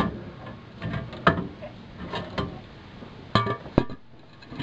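A run of sharp metallic clanks and knocks, about seven, some ringing briefly, as a Ford 9-inch rear axle housing is handled down and set on a concrete floor.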